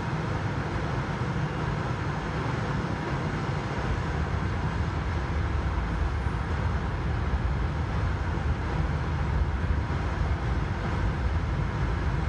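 Steady low rumble and hiss on a Boeing 777-200ER flight deck, with the engines running at idle while the aircraft stands parked after pushback. The low rumble grows stronger about four seconds in.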